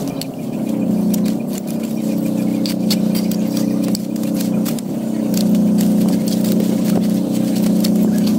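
A small electric motor humming steadily, with light clicks and taps over it; the hum dips briefly about halfway through.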